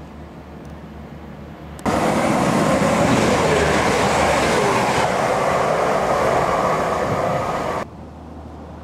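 A passenger train passing close alongside a station platform: a loud, steady rush of wheels on rail with a faint whine, lasting about six seconds and cutting in and out abruptly.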